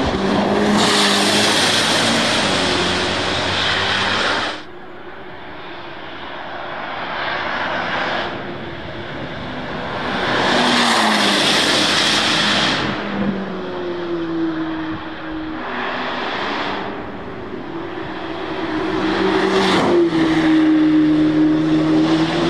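Camouflaged Corvette C8 ZR1 prototype's twin-turbo V8 running hard as the car passes on track several times, the engine note rising and falling through the gears. The first loud pass cuts off suddenly about four and a half seconds in; louder passes follow near the middle and the end.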